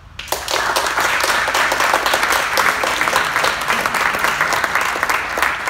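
A seated audience of a couple dozen people applauding at the end of a talk: clapping breaks out suddenly just after the start, holds steady, and begins to thin out near the end.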